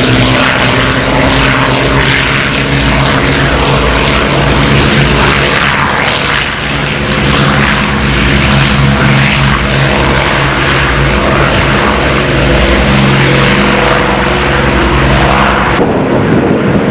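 Avro Lancaster's four Rolls-Royce Merlin V12 piston engines running on the runway, a loud steady drone of several deep tones, as the bomber taxis and begins its take-off run. The sound changes abruptly near the end.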